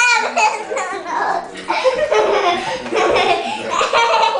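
A young girl laughing.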